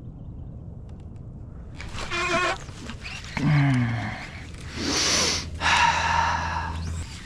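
A man's wordless vocal sounds: a short pitched cry about two seconds in, then a falling groan, among several short rushes of noise, over a low steady hum in the second half.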